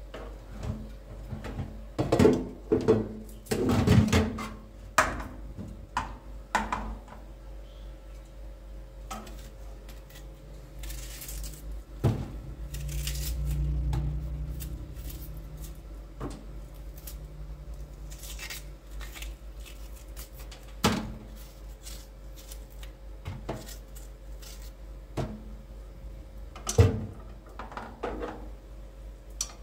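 Scattered knocks and clatters of small hard objects being handled, densest in the first seven seconds, with a low rumble for a couple of seconds midway and a faint steady hum beneath.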